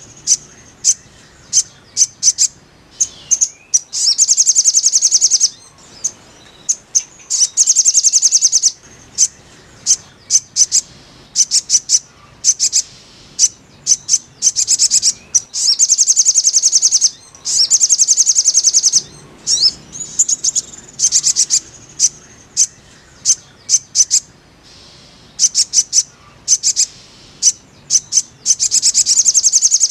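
Little spiderhunter (sogok ontong, 'sogon') calling: high, rapid chattering trills about a second long, repeated every two seconds or so, with single sharp chips between them.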